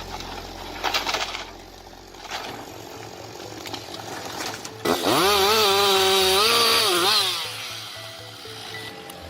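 Chainsaw engine revving up sharply to a high, steady whine, held for about two seconds, then dropping back. Before it there is lower machine and wood noise with a few knocks.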